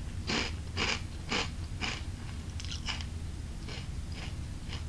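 Chewing of crispy Thai spicy-flavour rice crackers: short dry crunches about two a second, growing fainter and more irregular after the first two seconds.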